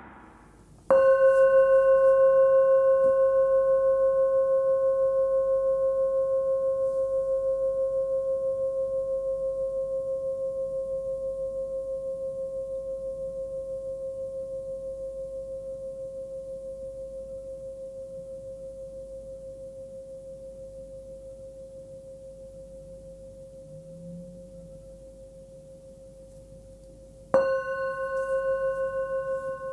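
Small hand-forged singing bowl, 11 cm, tuned to 528 Hz, struck once and left to ring: a clear high tone with a few fainter overtones, fading slowly over about 25 seconds with a gentle pulsing. It is struck again near the end.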